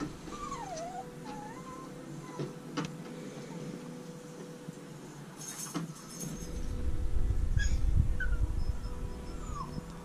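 Puppy whimpering in thin, wavering whines, with a few light clicks. From about six seconds in, a louder low rumble of handling noise as the dog is held against the camera, with a couple of short whines over it.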